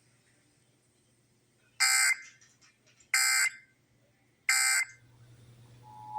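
Emergency Alert System end-of-message data tones: three short, identical screeching digital bursts, about a second and a half apart, marking the close of the alert. A steady two-tone beep begins just before the end.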